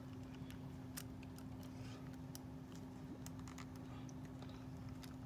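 Faint, irregular small clicks and taps as fingers handle a plastic fashion doll's body and its necklaces, over a steady low hum.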